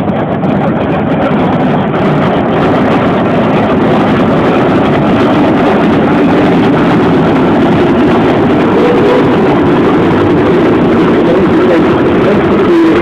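Steam traction engines driving past close by, a loud, steady mechanical running noise from engines and wheels on grass.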